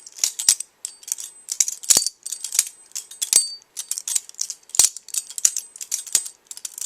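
Balisong (butterfly knife) being flipped: its metal handles and blade clack and rattle against each other in quick, irregular clusters of clicks, a few every second, some followed by a thin high metallic ring.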